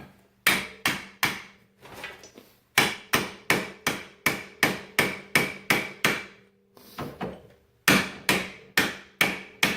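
Hammer blows on steel, driving the ATV's CV axle shaft into the wheel hub: about three sharp, ringing strikes a second in three runs, with short pauses after about a second and again about seven seconds in.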